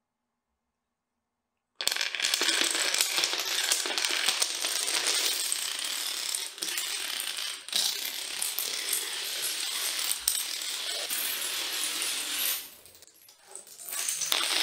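A long chain of dominoes toppling: a dense, rapid clatter of small clicks that starts about two seconds in and dies away near the end.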